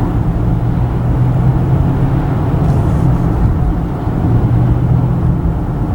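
A car driving along a road, heard from inside the cabin: a steady low engine hum over even tyre and road noise.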